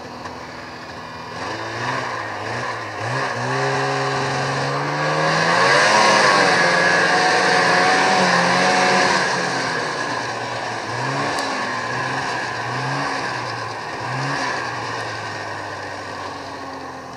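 Vintage two-stroke racing snowmobiles running on the track, engine pitch repeatedly rising and falling as they accelerate and back off. Several engines overlap, loudest about six to nine seconds in as they pass close, then fading.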